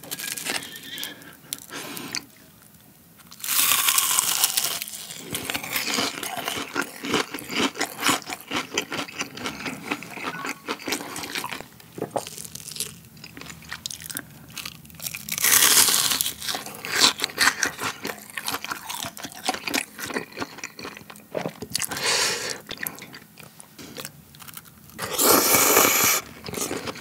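Close-miked eating: crunching bites of breaded, deep-fried cheese tonkatsu and wet chewing, with a long loud slurp of chewy noodles near the end.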